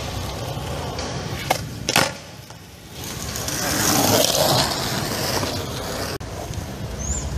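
Skateboard wheels rolling on concrete in a low rumble, with two sharp clacks of the board about one and a half and two seconds in. A rushing hiss swells and fades around four seconds in.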